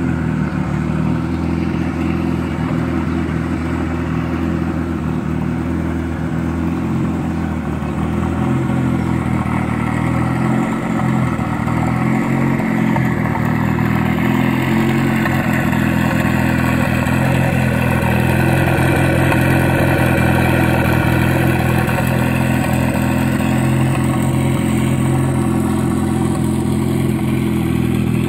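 Mitsubishi Lancer Evolution VI Tommi Mäkinen Edition's turbocharged four-cylinder engine running steadily, its pitch rising slightly about halfway through.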